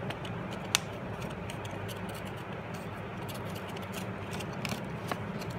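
Origami paper being pressed and creased by hand: faint rustling and scraping with a few small clicks, one sharp click about a second in, over a steady low background hum.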